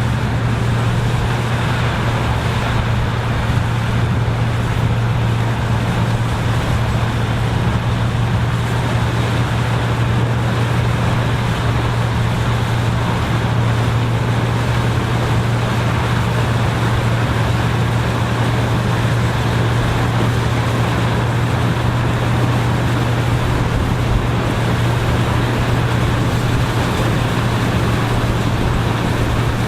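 Farm machinery engine running steadily under a constant load, with a strong low hum and a wide mechanical rush that do not change.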